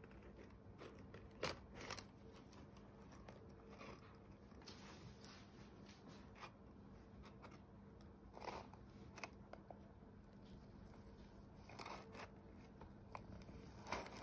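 Faint scattered clicks and scrapes as a metal adjustable rectangular cake frame is set and pressed down through a baked walnut sponge cake in its tray, over a low steady hum.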